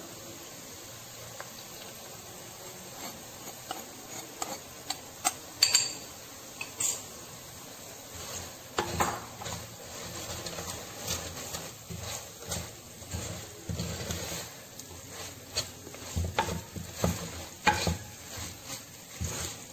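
A spoon stirring and scraping chilli powder through hot oil in an earthenware clay pot, with a light sizzle of the spice frying. The first few seconds are mostly a soft hiss, then irregular scrapes and knocks of the spoon on the pot come more and more often.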